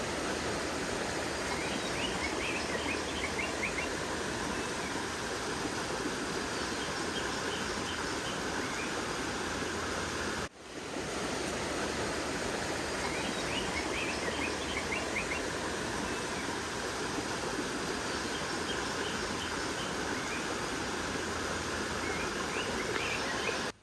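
Small rocky stream flowing, a steady rush of water over stones. A brief dropout about ten seconds in, and a few short high chirps twice.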